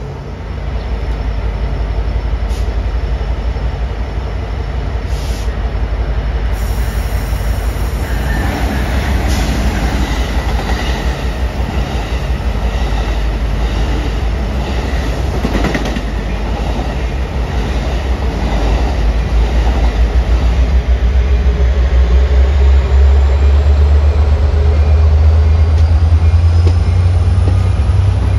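A train passing on the line: a heavy low rumble with wheels clicking over rail joints and some wheel squeal, the rumble growing louder over the last few seconds.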